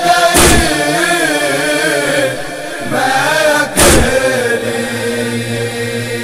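Voices chanting a held, wavering wordless line of an Urdu noha (Shia mourning lament), with two loud percussive beats about three and a half seconds apart.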